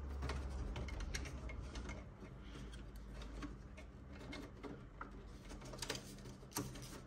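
Faint scattered clicks and light handling noises of a protective insert and cardboard being worked loose and pulled out from inside an HP Smart Tank 750 inkjet printer, over a low steady hum.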